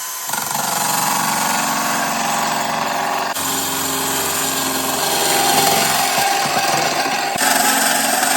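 A drill spins a small high-speed steel 36 TPI mini circular saw blade on a mandrel, cutting into two riveted layers of sheet metal. It is a steady, loud grinding cut with a high hiss, and the sound shifts abruptly twice.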